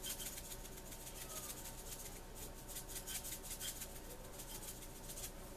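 Hand pepper grinder being twisted, grinding peppercorns with a faint, rapid, irregular crunching and clicking.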